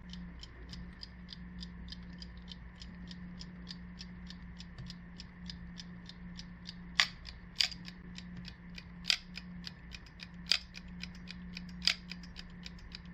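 Vityaz mechanical alarm clock ticking steadily and rapidly. About seven seconds in, its alarm hammer starts striking the case in single blows, roughly every second and a half. This is the gradual-wake mechanism, which lets the alarm begin with one blow at a time before ringing fully.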